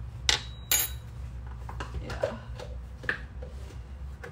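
A metal measuring spoon and kitchen containers clinking and knocking as they are handled: two sharp clinks in the first second, then lighter taps and knocks.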